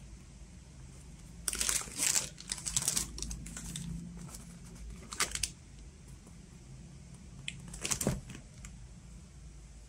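Cardboard vinyl-record mailer sealed with packing tape, handled and turned over by hand: scuffs and crinkles of the cardboard and tape. They come in a cluster about a second and a half in, then as short bursts about halfway through and near the end.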